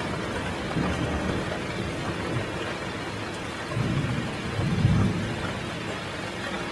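Heavy rain falling steadily while thunder rumbles low, with the loudest rumble swelling about four seconds in and fading after five.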